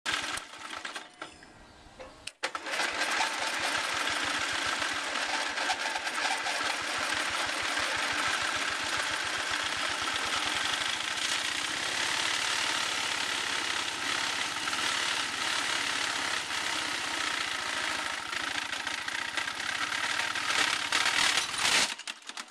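Riding lawn mower engine running hard at high revs, getting louder and harsher near the end, then cutting off abruptly as it blows up, blowing out the back of the engine and breaking the crankshaft.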